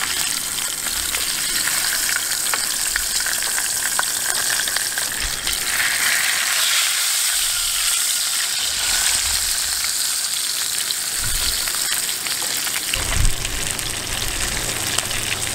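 Whole fish pan-frying in shallow hot oil in a skillet: a steady, loud sizzle with fine crackling spatter.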